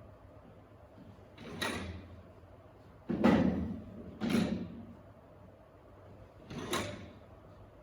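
Stacking chairs being handled and set down: four separate clattering knocks, the loudest about three seconds in.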